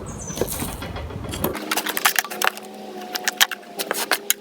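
A rubbing, scraping sound, then a run of sharp clicks and taps as dryer parts are handled, with a faint steady hum beneath the clicks.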